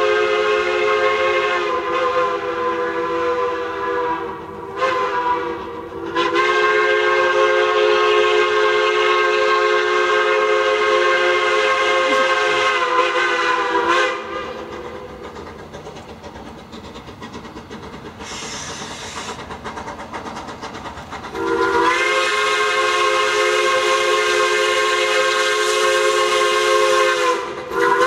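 Steam locomotive chime whistle blowing long steady blasts, several notes sounding together, each sagging slightly in pitch as it cuts off. There are three blasts, with a quieter stretch between the second and third.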